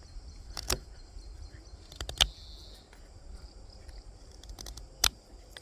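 Kizer Bugai knife cutting into hard pine in a handful of short, sharp strokes while carving a stake. Crickets chirp steadily in the background.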